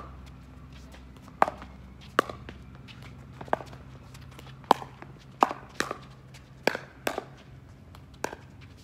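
A pickleball rally: sharp, hollow pops of paddles striking the plastic ball, about nine or ten at uneven spacing, coming quicker in the middle, with lighter ticks of the ball bouncing and shoes on the court between them.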